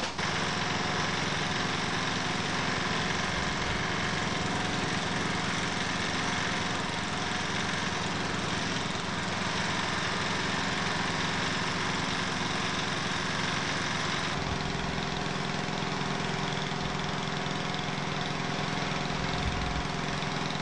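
Small portable petrol engine unit running steadily at a constant speed, a lawnmower-like drone; its tone changes about fourteen seconds in.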